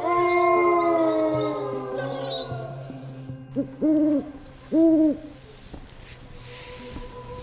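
A dog howls in a long, slowly falling wail, then an owl hoots twice, about a second apart, a little past the middle. These are eerie night sounds over a steady low hum.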